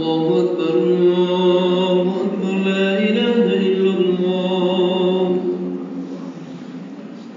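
A man's voice chanting in long, held melodic notes as part of the opening of the dawn prayer before the Quran recitation. The chant stops about five and a half seconds in and its echo fades away.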